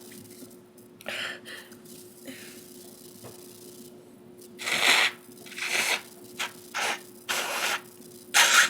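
A person sneezing repeatedly: a run of short sneezes, some of them stifled, with sharp breaths between. The loudest comes about five seconds in, and another strong one comes near the end.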